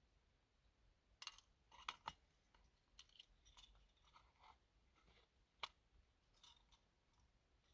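Faint scattered clicks and light clinks of small hard objects being handled, with the sharpest clicks about two seconds in and between five and six seconds in.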